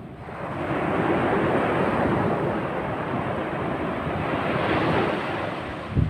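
Ocean surf: a small wave breaking and washing up a sandy beach, the rush swelling about a second in and easing off near the end.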